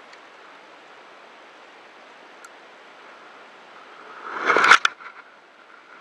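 Steady hiss of wind and sea on the microphone. About four seconds in, a loud rush swells for about half a second and ends in a few sharp knocks.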